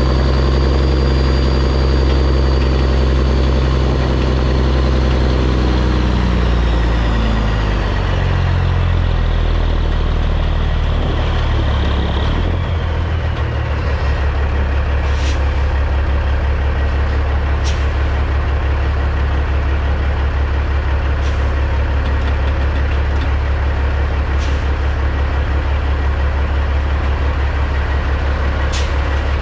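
The Peterbilt 379's CAT C15 diesel runs at raised revs, then the revs and a high whine fall away over the first dozen seconds. It then settles into a steady, low, thrumming idle.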